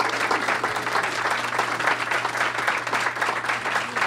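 A roomful of people applauding, with dense, steady clapping throughout.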